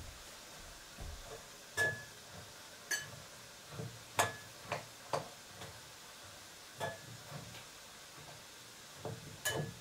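A kitchen utensil clinking and tapping against a pot on a Russian stove as food is stirred. The sharp clinks come at irregular intervals, several with a short metallic ring.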